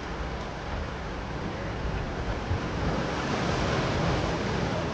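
Ocean surf washing against rocks, a steady rush that swells about halfway through.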